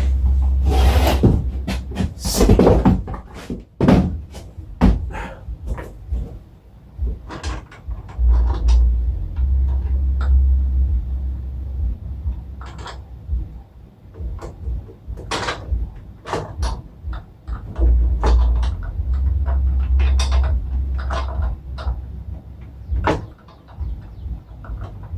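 Irregular knocks, clicks and clunks of hands-on work fitting a rooftop air conditioner's mounting, with stretches of low rumble about a second, eight seconds and eighteen seconds in.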